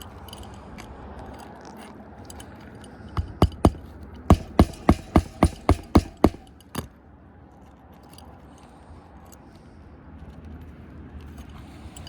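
Hammer driving roofing nails into a replacement roof shingle: a quick run of about a dozen sharp strikes, roughly four a second, with a short pause after the first three. Faint rustling and small clicks of the shingles being handled before and after.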